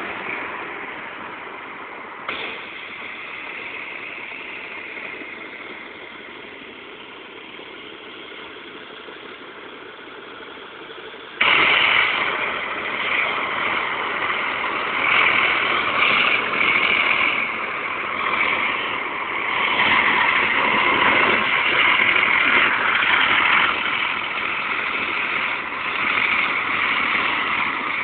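Diesel freight train approaching, its locomotive engines running at a distance. About eleven seconds in, a much louder rushing noise cuts in suddenly and stays, swelling and easing unevenly.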